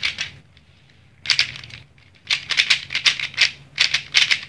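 Plastic speed cube being turned rapidly by hand, its layers clicking and swishing in quick flurries, with a short pause just under a second in. The cube has just been cleaned, lubed and tensioned, and turns fast.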